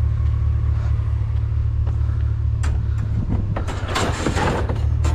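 Vehicle engine idling steadily, with a few sharp clicks and a short stretch of clatter from about three seconds in.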